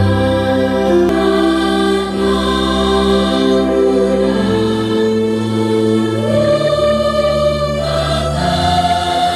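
Large mixed student choir singing an Indonesian patriotic song, holding long, slow notes that change pitch every second or two.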